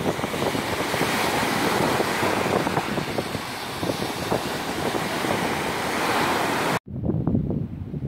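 Small sea waves breaking and washing around in shallow surf, with wind buffeting the microphone. The sound cuts off suddenly near the end, leaving only a lower, gusty wind rumble.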